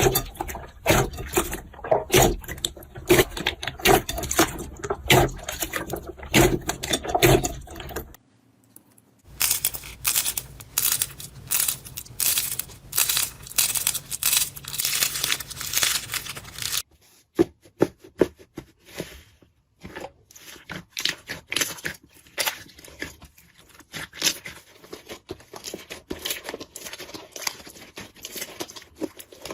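Slime being squeezed and pressed by hand, making dense crackling and popping clicks. There is a short break about eight seconds in and another change near seventeen seconds, after which the clicks come sparser and quieter.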